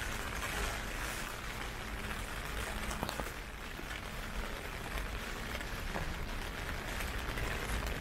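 Heavy typhoon rain falling, a steady hiss with a few faint ticks of drops.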